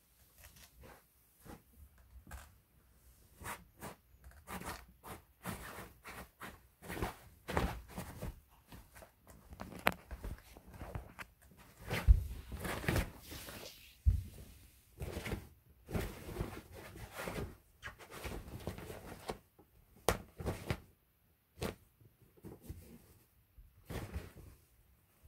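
Cats playing in and around a nylon pop-up cat tunnel: the tunnel fabric rustles, with irregular taps, scratches and thumps as they paw at it and bump it. The loudest thump comes about halfway through.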